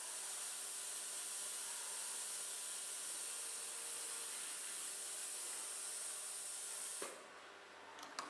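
Water sprayer of a waterjet cutting machine's slab washer, hissing steadily as it rinses cutting sludge off the stone slab. The hiss cuts off suddenly about seven seconds in, and a couple of faint clicks follow near the end.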